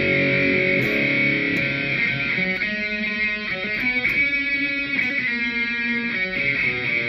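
Electric guitar, an Epiphone Les Paul Prophecy fitted with Gibson 61R&T pickups, played through an amp. A chord rings, and then a short run of changing notes is played over it from about two and a half seconds in.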